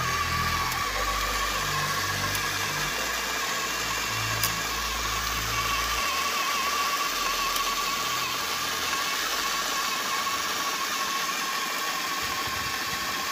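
Electric drive motor and gearbox of an RC scale dump truck whining steadily as it crawls through mud, over a constant hiss. A low rumble underneath drops away about six seconds in.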